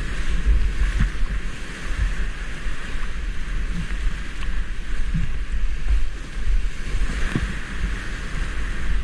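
Whitewater rapids rushing around a kayak, with water and wind buffeting the microphone as a low rumble and a few dull thumps.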